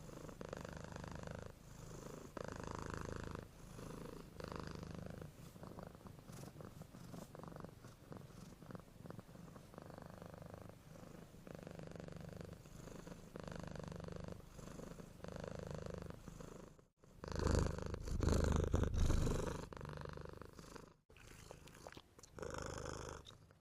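A domestic cat snoring in its sleep, a rough, rattling breath rising and falling about every two seconds. About two-thirds of the way through there is a louder, noisier stretch of a few seconds.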